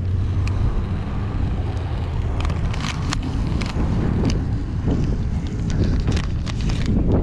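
Wind buffeting the microphone as a steady low rumble, with scattered crackles and ticks through the middle and latter part.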